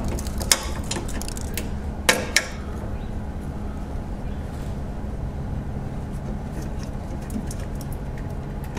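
Plastic wiring-harness clips being worked loose from a car's radiator support by hand. A few sharp clicks come in the first two and a half seconds, over a steady low hum.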